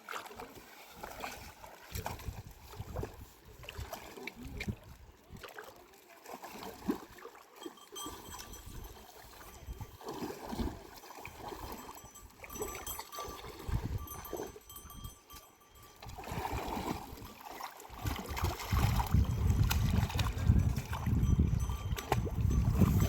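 Irregular splashing and sloshing of river water, with a low rumble that grows loud near the end.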